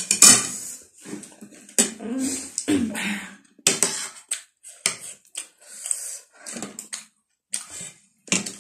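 People eating noodles and chatpate: chewing and other mouth sounds, with metal forks and spoons clicking and scraping on ceramic plates in short, irregular sounds.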